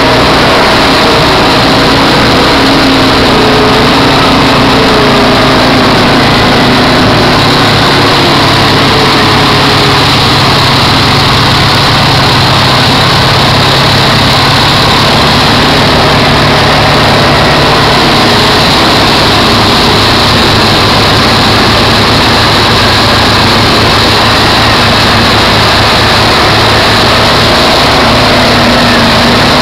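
ATV engines running under load as the quads plough through deep water, loud and steady, with water splashing.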